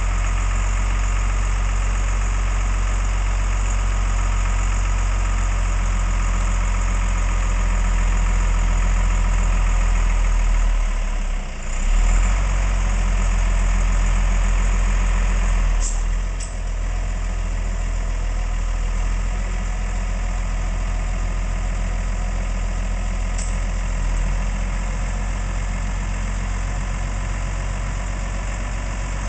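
Vehicle engine idling steadily with a low, even hum, with a brief drop in level about 11 seconds in and a short knock near 16 seconds.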